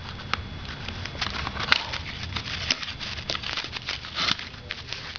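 Firework packaging being handled: irregular crinkling, rustling and light taps, with a louder rustle about four seconds in.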